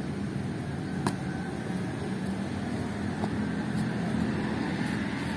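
Steady background noise with a low hum, broken by a faint click about a second in and another near the middle.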